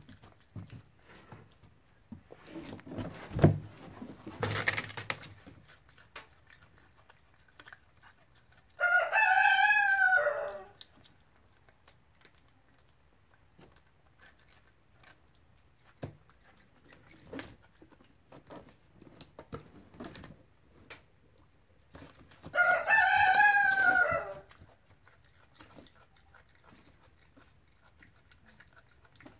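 A rooster crows twice, about thirteen seconds apart, each crow lasting about two seconds and rising then falling in pitch. Earlier comes a short rustling with one sharp knock, the loudest moment.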